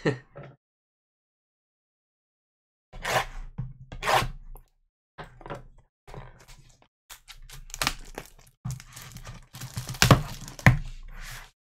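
Clear plastic shrink-wrap being torn and peeled off a trading-card box, in irregular crinkling rips with a few thumps as the cardboard box is handled. It starts about three seconds in.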